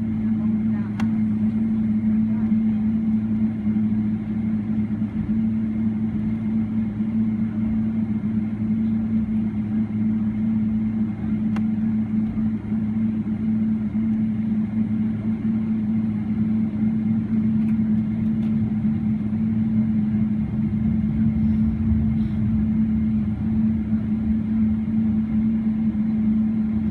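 Steady cabin drone of a Boeing 777-300ER taxiing with its GE90 engines at idle: an even hum with a low rumble that swells briefly about twenty seconds in.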